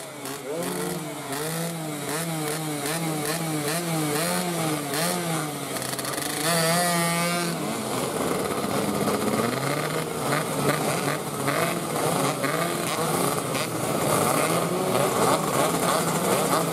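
Two-stroke 116cc underbone race motorcycles revving on the starting grid. One engine is blipped over and over in quick rises and falls of pitch, about one and a half a second, ending in a fast warbling rev. Then many engines rev together, growing louder.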